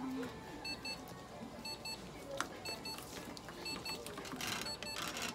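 Electronic beeping: a quick pair of high beeps repeating about once a second, with a short hiss about four and a half seconds in.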